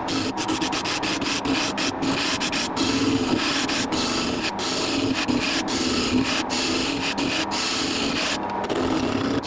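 Wood lathe running while a turning tool cuts a spinning wooden spindle: a continuous rough hiss of shavings peeling off over a steady low hum, broken by many very brief pauses in the cut.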